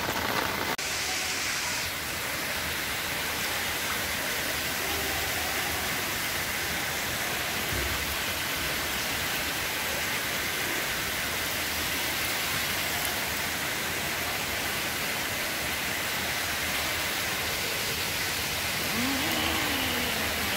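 Heavy monsoon rain pouring steadily onto waterlogged ground, an even, unbroken hiss.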